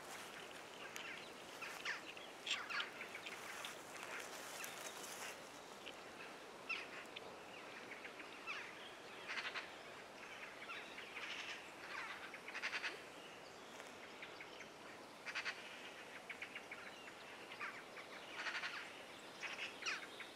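Soft, repeated breaths blowing into a jute-twine tinder nest around smouldering char cloth, coaxing the ember toward flame. Birds chirp in short, scattered calls throughout, and these are the loudest sounds.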